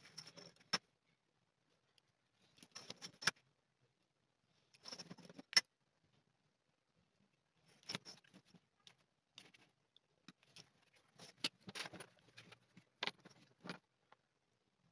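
Leatherwork bench sounds: a craft knife and steel ruler on a cutting mat, with crazy horse leather being cut and moved. Short scratchy strokes come in spells, several ending in a sharp click of metal set down on the mat, and scattered light clicks and scrapes follow in the second half.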